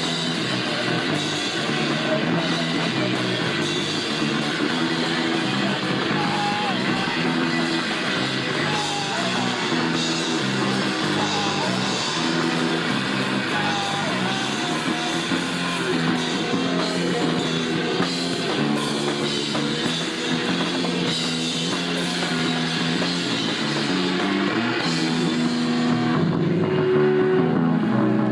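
Punk rock band playing live, with electric guitar and drum kit going steadily.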